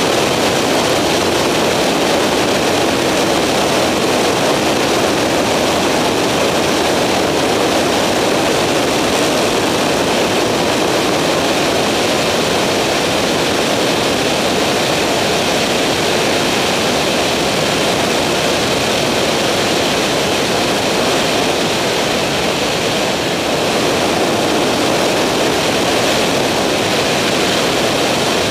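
Skyranger microlight's engine and propeller droning steadily in cruise, heard from on board, with a rushing noise of wind over the aircraft.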